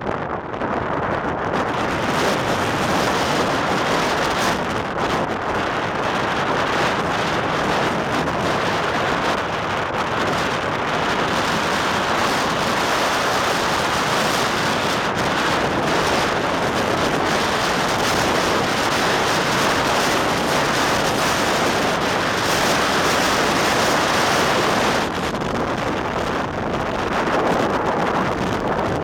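Strong windstorm wind blowing hard across the microphone in a steady rush, with wind-driven lake waves breaking underneath; it eases slightly near the end.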